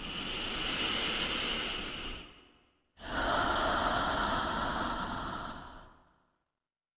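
A person breathing slowly and deeply: two long, airy breaths of about two and a half to three seconds each, with a short silent gap between them, the second lower in pitch than the first.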